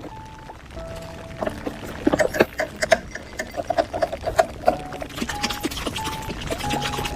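Slime being handled, making clusters of quick wet, sticky clicks, over a simple melody of held notes.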